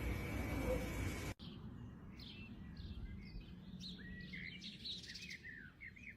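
Steady hiss for the first second and a half, then a cut to many short, high chirps of small birds calling, several a second, many falling in pitch.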